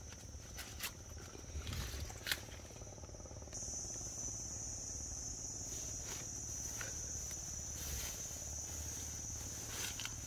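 Insects chirring in a steady, high-pitched drone that grows louder about three and a half seconds in. A few faint clicks and rustles come in the first couple of seconds.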